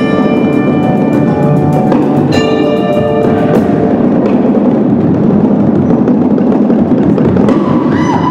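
Indoor percussion ensemble playing. Marimbas and bells ring over rapid drum strokes for the first three seconds or so, then marching bass drums and snare carry on in a dense, continuous roll.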